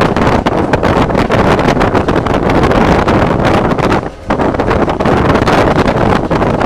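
Wind rushing and buffeting on the microphone in the cab of an SD40-2 diesel locomotive on the move, over the running of the locomotive. The rush dips briefly about four seconds in.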